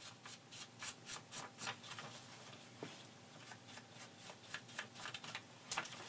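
Ink blending brush scrubbing ink onto the edges of a paper envelope in quick scratchy strokes, several close together in the first two seconds, then fewer.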